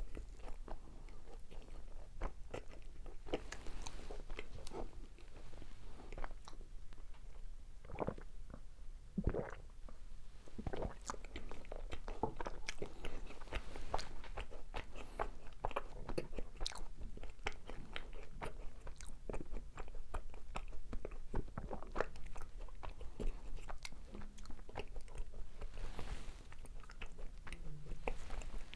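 Close-miked eating of macarons: crisp shells crunching as they are bitten, then soft, sticky chewing with many small crackles.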